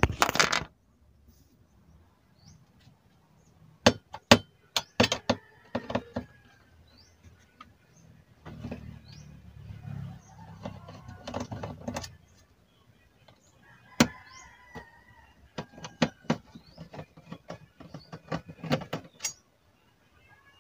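A screwdriver taking out the mounting screws of a circuit board on an LED TV's metal back chassis. It gives scattered sharp metallic clicks and clinks, with a few seconds of duller handling noise near the middle.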